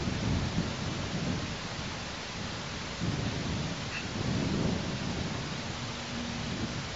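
Wind buffeting an outdoor microphone: low rumbling gusts that swell and fade in waves over a steady hiss.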